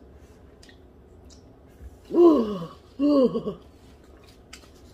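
A woman's voice giving two loud moans about two and three seconds in, each falling in pitch, acting out a man's orgasm.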